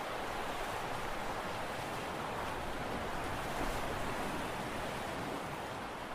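Steady wash of sea waves with wind, an even noise without any distinct engine note or sudden sounds.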